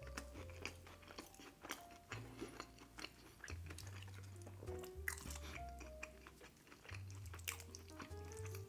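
A person chewing and biting food close to the microphone, with frequent short crunches and wet mouth clicks. Quiet background music with a steady bass line plays underneath.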